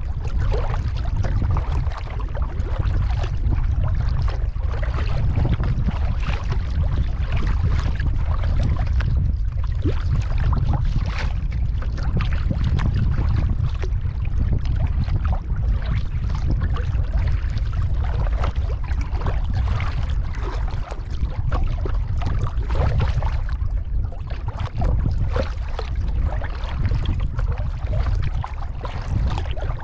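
Kayak paddle strokes dipping and splashing in the water, over a steady low rumble of wind on the microphone.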